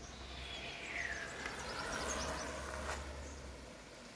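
Outdoor ambience of birds calling and insects, with a falling whistle about a second in and quick high chirps after it, over a low rumble that fades near the end.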